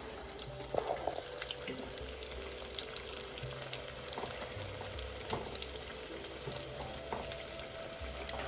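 Rolled maida-dough pheni deep-frying in hot oil in an aluminium kadai: a steady sizzle full of fine crackles, with an occasional light knock.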